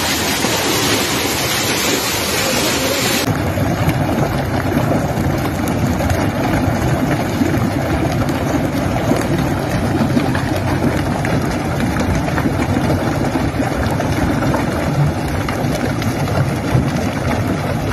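Crude oil jetting from a ruptured pipeline with a steady loud hiss. After a cut about three seconds in comes a continuous lower rushing rumble of oil-laden water pouring over rocks.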